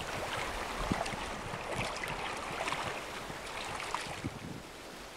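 Small waves lapping and splashing against a stony lakeshore, with irregular little splashes over a steady wash, and wind on the microphone.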